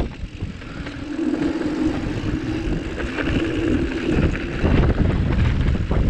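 Mountain bike rolling down a dirt trail, with wind buffeting the action camera's microphone and the rumble of knobby tyres over the ground. A steady buzzing hum comes in about a second in and fades out past four seconds.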